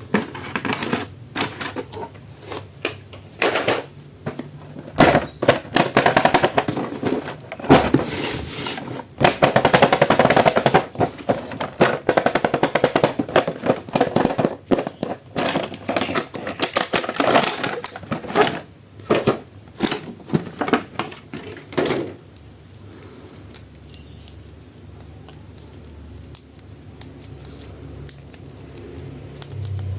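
Plastic packaging crinkling and crackling in irregular rapid bursts as an action figure is handled and unwrapped, busiest over roughly the first twenty seconds and then thinning out to a few scattered rustles.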